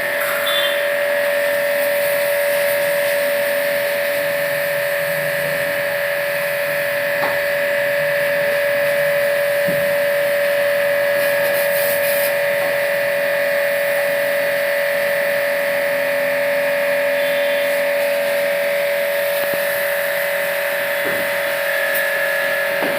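A motor-driven machine running steadily with a constant whining tone over a hiss.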